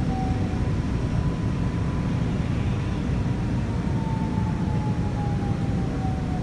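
Running noise inside a Korail commuter electric train's passenger car: a steady low rumble from the wheels and track, with a faint whine slowly falling in pitch.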